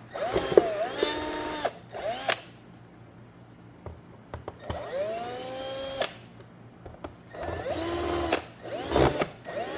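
Small cordless driver running in about six short bursts, each spinning up quickly, holding a steady whine and stopping, as it backs screws out of a plastic case. A few light clicks fall in a pause near the middle.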